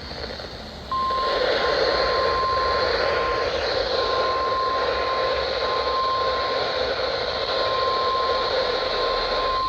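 NOAA Weather Radio warning alarm tone: a single steady 1050 Hz tone starting about a second in and held for about nine seconds over radio hiss, with a brief dropout a few seconds in. It is the alert signal that precedes a spoken severe thunderstorm warning.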